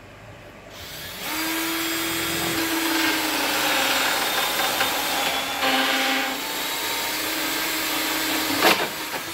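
Ridgid cordless drill spinning a Greenlee Ultra Cutter through PVC pipe to cut a 2-inch hole: a steady motor whine with a hiss of cutting, starting about a second in. The pitch sags briefly under load midway, and a sharp click comes near the end.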